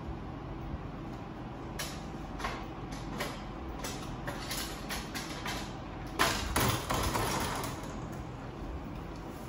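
Plastic printer parts being handled during disassembly: a few light clicks and knocks, then a louder scraping rattle about six seconds in, over a steady low hum.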